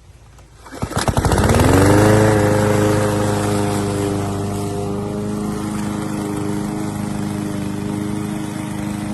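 PowerSmart 21-inch push mower's 144cc single-cylinder OHV gas engine cranking and catching about a second in, its pitch rising briefly as it starts, then settling into steady running.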